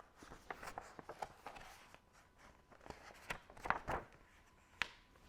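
Faint soft taps and rustles of a picture book being handled, with a few sharper taps about two-thirds of the way through.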